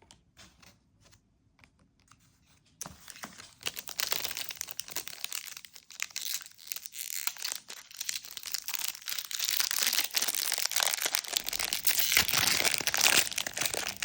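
2020 Panini Prizm WNBA trading card pack's foil wrapper being crinkled and torn open by hand, starting about three seconds in after a few faint ticks and growing louder toward the end.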